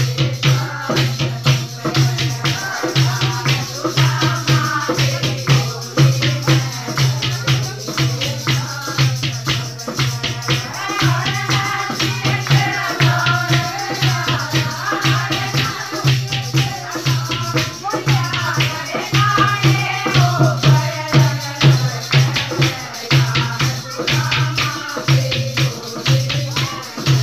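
Group of women singing a folk song to a fast dholak drum beat with hand-clapping.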